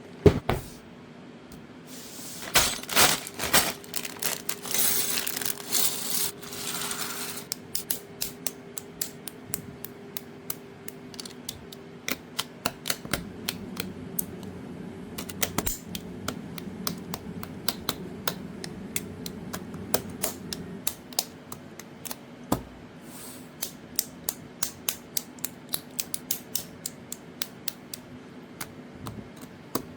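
Plastic Lego pieces being handled and pressed together: a long series of sharp clicks, several a second in places, after a few seconds of rustling and clattering near the start.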